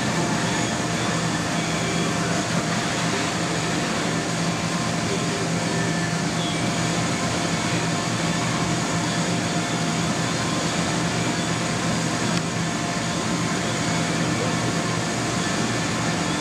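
Large electric fan or blower running steadily: a constant rushing drone with a low, even hum through it.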